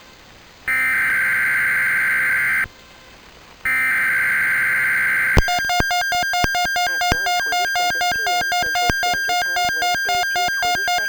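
Weather radio emergency alert tones: two buzzy digital data bursts of about two seconds each, a second apart, typical of a SAME alert header. About five seconds in, a loud electronic alert tone starts and pulses steadily.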